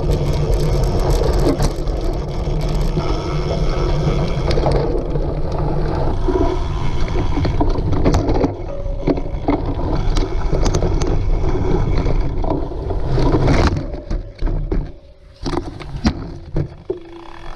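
Cyclocross bike ridden hard over rough ground: a continuous rumble with frequent sharp knocks and rattles. The noise drops away briefly near the end, then comes back.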